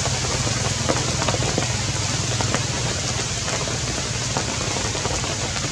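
Steady rain hiss with scattered faint drip ticks, over a low steady hum.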